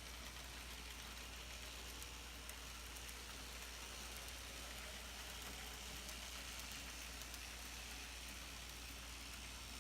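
Faint steady running noise of N scale model trams on plastic street track, with a few light clicks.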